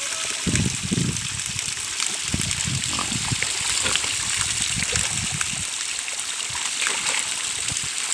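Water from a hose spraying and splashing into a muddy wallow, a steady hiss and trickle of running water with irregular low splashing through the first five seconds or so.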